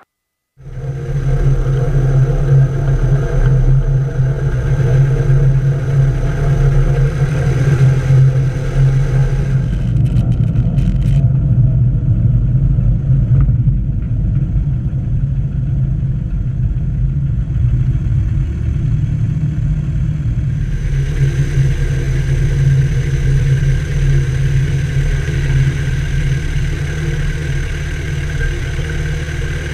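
Piper PA28-161 Warrior II's four-cylinder Lycoming piston engine and propeller running steadily at low power while the aircraft taxis, a deep drone. The sound changes character about ten seconds in and again about twenty seconds in.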